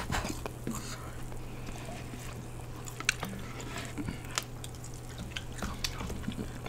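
Close-up mouth sounds of eating cheese-covered fried chicken: chewing with wet clicks and lip smacks scattered through, over a steady low hum.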